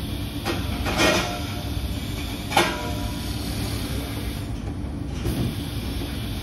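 Laser cutting machine running with a steady low mechanical noise, broken by sharp clanks about one second and two and a half seconds in, each with a brief metallic ring.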